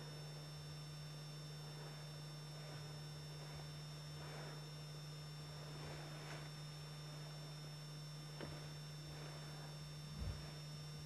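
Steady low electrical hum with hiss, from the recording itself. A few faint soft sounds and a faint click come through, and there is a brief low thump near the end.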